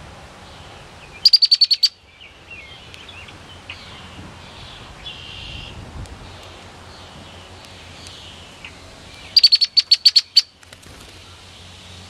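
Female red-winged blackbird giving its chattering call, a rapid series of sharp high chit notes lasting well under a second. The chatter comes twice, about a second in and again near the end, with softer bird chirps between.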